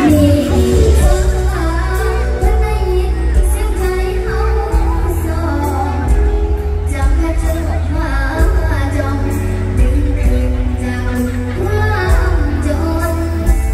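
Live mor lam band music played loud through a PA system, with heavy bass and a young girl singing over it.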